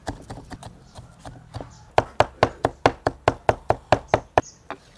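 Cleaver mincing garlic on a wooden chopping board: quick knocks of the blade on the wood, light at first, then a steady run of louder chops, about five a second, from about two seconds in.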